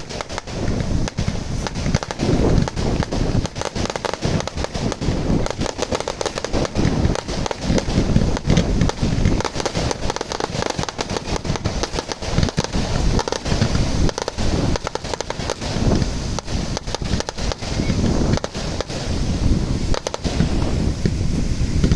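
Fireworks going off in a continuous, irregular barrage of sharp bangs and crackles, many a second, with heavy low booming.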